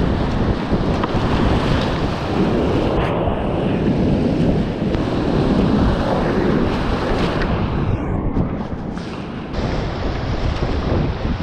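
Whitewater rapids rushing and splashing close around a kayak, with wind buffeting the microphone. The sound turns briefly muffled about eight seconds in.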